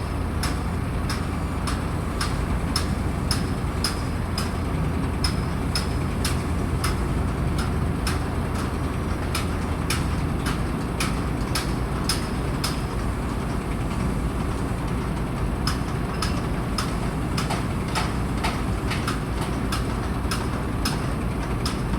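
Heavy machinery engine running steadily with a low rumble, over many sharp ticks and clicks, two or three a second.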